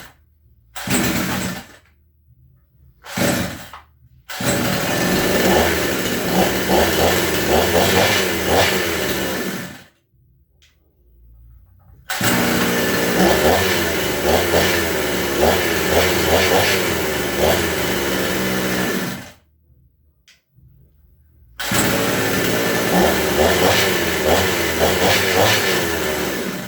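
Petrol chainsaw engine firing in two short bursts of about a second each, then running for about six seconds, cutting out, running again for about seven seconds, cutting out, and starting once more near the end. Its pitch rises and falls during each run.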